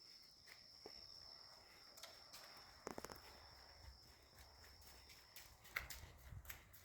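Near silence: faint room tone with a thin, steady high-pitched whine that stops about two-thirds of the way in, and a few soft clicks and knocks.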